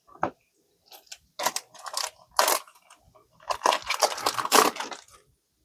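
Trading cards and their pack wrapper being handled: a sharp click, then two spells of crinkling and rustling as cards are slid and flipped.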